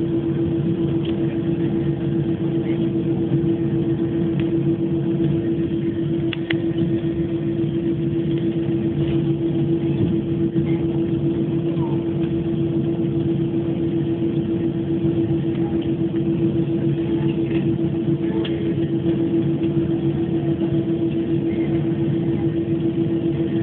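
Cabin noise inside an Airbus A321 as it taxis: a steady drone from the engines at idle and the cabin air, with one strong unchanging hum tone over a low rumble and a few faint clicks.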